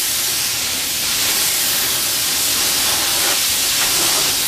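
Compressed-air gravity-feed spray gun hissing steadily while spraying a coat of clear.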